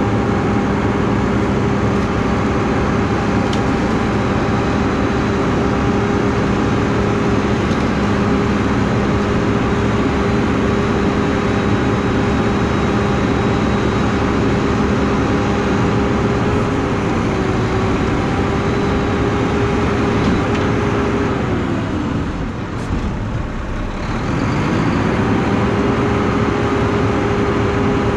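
Front-load garbage truck's diesel engine running steadily with a pitched hum. About three quarters of the way through, the pitch sags and the sound dips for a couple of seconds, then comes back up to the same steady note.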